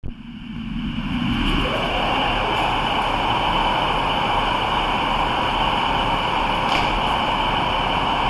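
Class 153 diesel railcar with its underfloor Cummins diesel engine running steadily while standing at the platform. The sound swells over the first second and a half, then holds even, with a faint click about seven seconds in.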